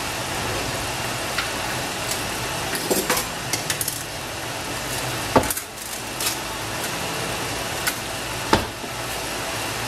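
A large pan of beef sinigang broth simmering on a gas stove, a steady bubbling hiss, broken by a few sharp knocks, the loudest about halfway through and near the end.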